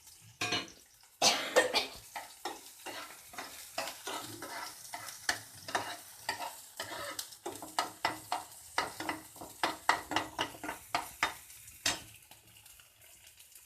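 Spoon stirring spring onion, garlic and ginger frying in hot oil in a pan, with many short scrapes of the spoon against the pan over a steady sizzle. There is a louder sizzle just after a second in, and the stirring stops near the end.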